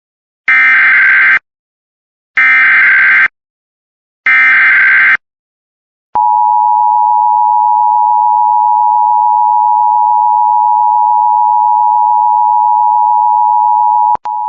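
Emergency Alert System alert opening: three SAME digital header bursts, each a harsh warbling data screech about a second long and two seconds apart. They are followed about six seconds in by the loud, steady two-tone attention signal, which drops out for an instant near the end. Together they announce an incoming warning broadcast.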